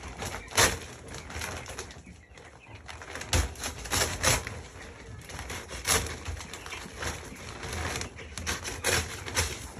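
A flock of 13-day-old broiler chickens at their feed, calling softly, with irregular sharp clicks and taps throughout as grower pellets are handled and pecked.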